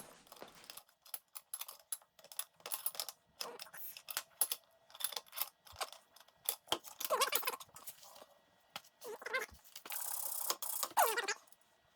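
Small metal parts and tools being handled: a run of sharp clinks, clicks and rattles, with a few short scraping sounds and a denser burst of rattling about ten seconds in.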